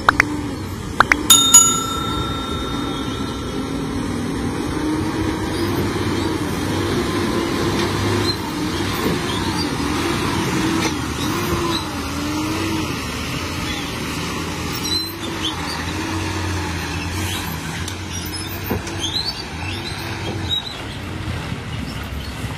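Steady engine-like hum whose pitch wavers slowly up and down, laid over a toy dump truck. About a second in, a bright bell-like ding rings for about two seconds.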